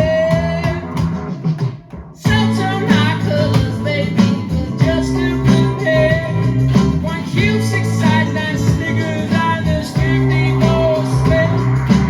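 Live acoustic band music: acoustic guitar strumming chords under a pitched lead line. It breaks off briefly about two seconds in, then comes back in.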